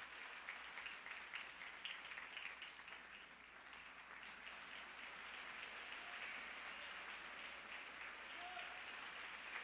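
Audience applauding, faint and steady.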